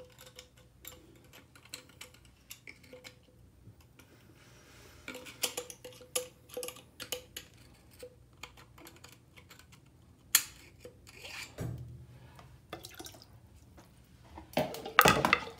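Thin wire poked and scraped through the small plastic tube of a TOTO toilet fill valve, light scattered clicks and scrapes as it clears debris from the tube's 2 mm hole. Near the end, a louder splash as the part is dipped into a tub of water.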